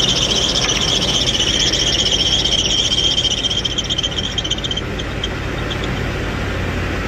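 A running engine's accessory drive belt squeals over its pulleys in a fast, pulsing high squeal. The squeal stops about five seconds in as a stick of deodorant is rubbed onto the belt as a makeshift belt dressing, and only the steady sound of the running engine is left.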